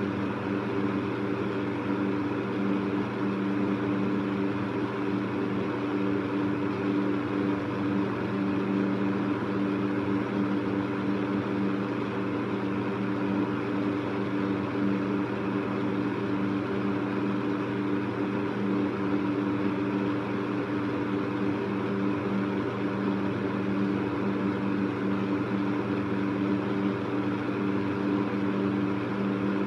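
Electric fan running steadily: a low motor hum of a few held tones under an even rush of moving air.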